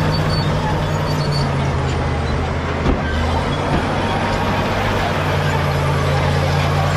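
Caterpillar D7G bulldozer's diesel engine running steadily, with a single sharp clunk about three seconds in.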